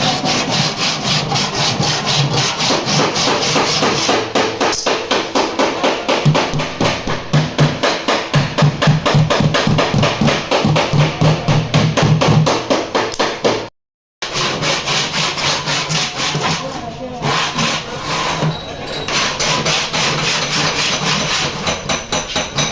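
Rapid back-and-forth abrasive rubbing, about four strokes a second, as of bodywork on a car door being sanded by hand. It stops dead for a moment about fourteen seconds in, then carries on.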